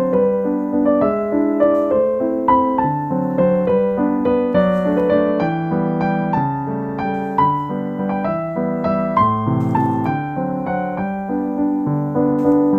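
Background piano music: a gentle melody over steady chords.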